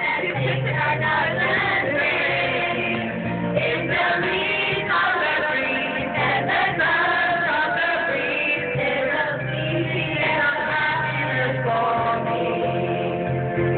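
Karaoke: a man singing into a microphone over a music backing track, with a steady bass line under the sung melody.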